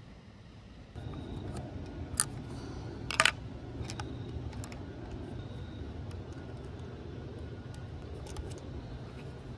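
Small clicks and taps of bolts, washers and a hex key being handled on a handguard's mounting bracket, with a sharper click about three seconds in, over a steady low rumble.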